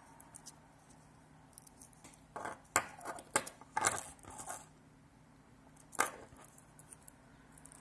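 Scattered clicks and taps of a small keychain multitool being fumbled in one hand as its blades are worked open, in irregular clusters with the sharpest click about six seconds in.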